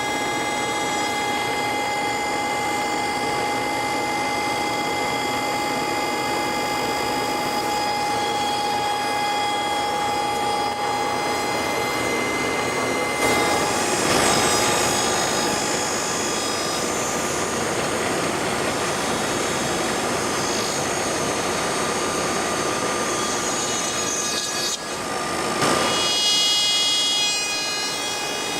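A power tool running with a steady whine, its sound shifting and briefly louder about halfway through and again near the end.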